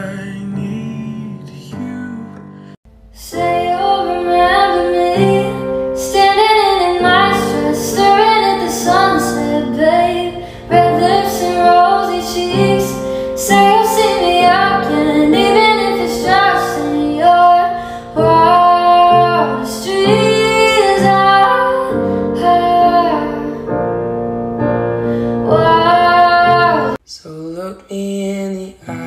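A woman singing with her own piano accompaniment, which starts about three seconds in after a man's sung phrase ends. Near the end it cuts abruptly to a man singing over an acoustic guitar.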